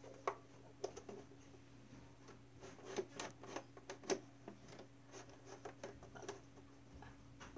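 Faint handling noise of a handheld phone camera: scattered light taps, rubs and scrapes, a few louder ones around the middle, over a low steady hum.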